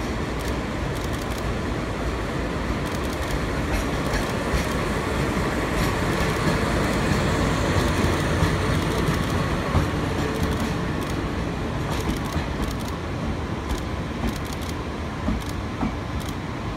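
A diesel locomotive hauling a brake van and new Meitetsu 3150-series electric cars slowly past. It grows louder toward the middle as the locomotive goes by, then the steel wheels of the unpowered cars click over rail joints as they roll through.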